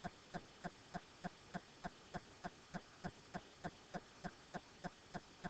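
Faint, very even ticking, about three ticks a second, like a small mechanism or clock.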